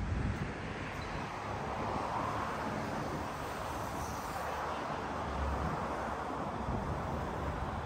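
Steady road traffic noise from cars on a multi-lane expressway below, a mix of tyre hiss and engine rumble that swells gently as vehicles pass. There is a short bump right at the start.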